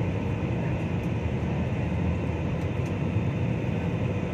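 Steady cabin noise of a jet airliner in flight: an even, low rumble of engines and airflow heard from inside the cabin.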